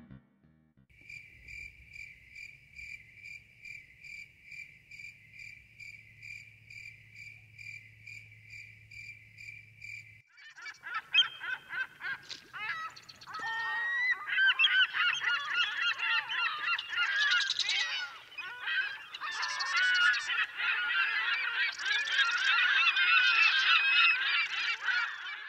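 A high pulsing tone repeating about twice a second, then, about ten seconds in, a louder clamour of many overlapping calls from a flock of birds that lasts to the end.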